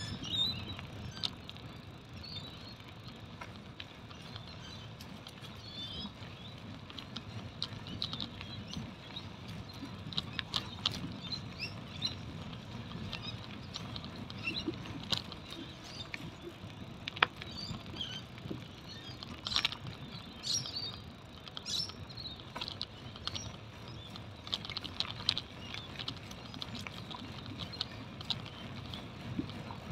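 Bicycle rolling along a sealed path: a steady low tyre-on-asphalt rumble with many small scattered clicks and rattles.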